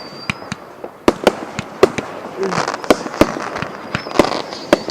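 Fireworks going off in a rapid, irregular series of sharp bangs, some followed by crackling showers, with a thin high whistle at the start and again near the end.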